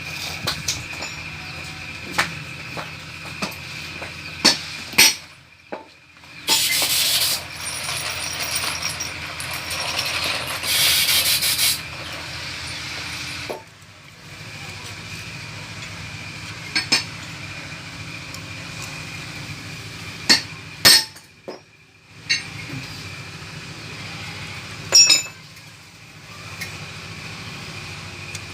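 Metal engine parts and hand tools clinking, knocking and ratcheting as a motorcycle engine is assembled by hand. A loud hiss runs from about six to twelve seconds in.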